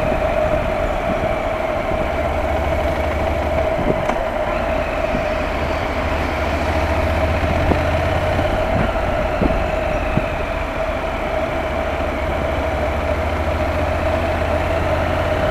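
A Honda's engine running steadily with road and wind noise while travelling at moderate speed, a constant drone with one steady tone held throughout.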